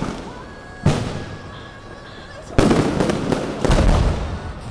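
Fireworks going off: a bang about a second in and two more bangs close together in the second half, each with a rumbling, fading tail. A thin, steady whistling tone sounds between the first two.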